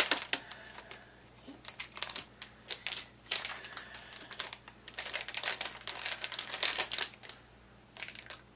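Clear plastic candy bag crinkling and crackling in several spells as it is cut open with a carving knife and pulled apart.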